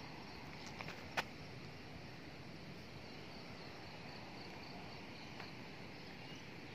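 Faint outdoor ambience with a cricket chirping: a high, even pulse about four times a second that drops out after about a second and resumes midway. A single sharp click about a second in stands out as the loudest sound.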